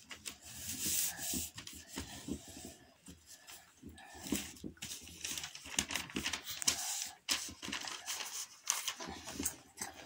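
A sheet of paper being handled and folded by hand, rustling and crinkling in short irregular bursts as it is lifted, turned and rubbed flat against a rug.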